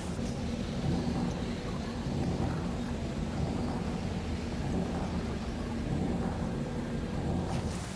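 A steady, deep rumbling drone with an even hiss above it and no distinct knocks or calls.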